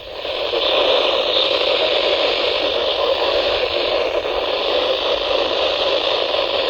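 Steady hiss of static from a NOAA Weather Radio receiver, swelling over the first second and then holding steady.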